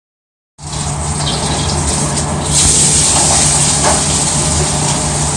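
Food sizzling in a hot wok: a loud, steady hiss over a low rumble, starting suddenly and growing louder a couple of seconds in.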